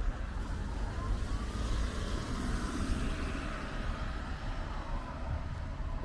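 A road vehicle passing; its noise swells and fades around the middle, over a steady low rumble.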